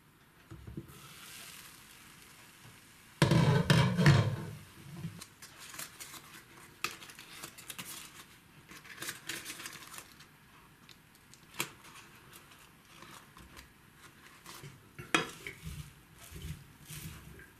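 A glass pan lid lifted off and set down with a loud clatter, followed by scattered clicks and rustles as butter is cut from its wrapper with a knife, and a wooden spatula scraping through cooked rice in the pan near the end.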